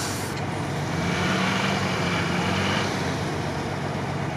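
UAZ off-roader's engine running under load as it crawls through marsh water, the engine note rising a little about a second in and easing back near three seconds.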